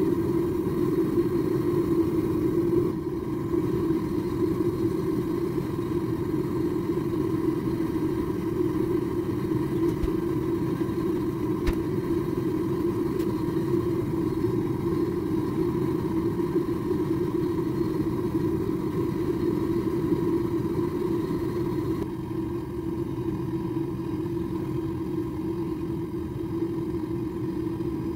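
Gas forge burner running with a steady rushing rumble and a faint steady tone, heating a steel blade to normalizing temperature. The level drops slightly about three quarters of the way through.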